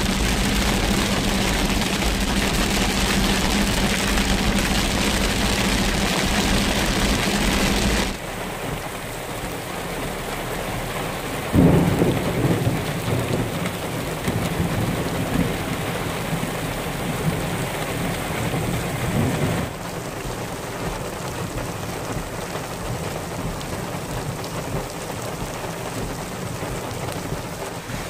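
Heavy rain beating on a car's windshield and roof, with a steady hum from the car. After a cut, rain falls in the open and a sudden clap of thunder breaks out about a third of the way in and rumbles away over several seconds. Near the end there is steady rain with runoff water pouring down a rock face.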